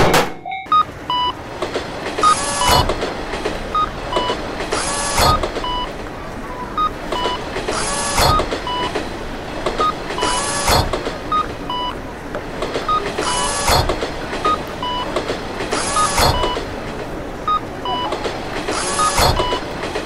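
Train passing close by: a steady running rumble with a double clack from the wheels over a rail joint every two to three seconds. A short two-tone electronic beep repeats about twice a second over it.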